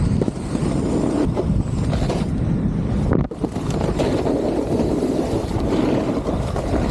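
Snowboard sliding and scraping over packed snow, with wind buffeting the microphone. The noise is steady, breaks off abruptly for a moment a little past the middle, then returns at once.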